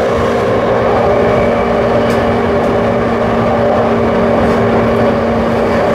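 JR East E235 series electric train (Yamanote Line set with a Toshiba SiC-VVVF inverter) running at a steady speed: continuous wheel-and-rail rumble with two steady hums beneath it.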